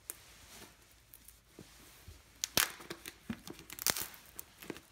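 Cardboard flat-pack furniture box being torn open and handled: scattered scrapes and sharp cracks, the loudest about two and a half and four seconds in.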